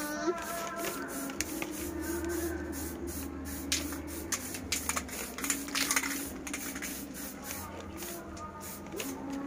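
Aerosol spray-paint can hissing in many short bursts as black paint is sprayed on a muffler.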